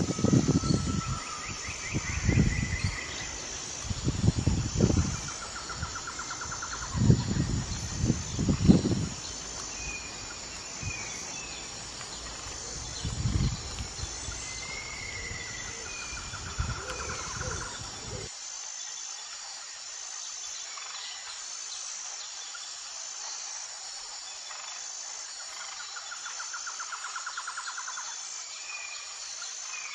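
Outdoor ambience of birds chirping and giving short trills over a steady, evenly pulsing insect chirp. Irregular low thuds come through in the first half and stop abruptly about two-thirds of the way in.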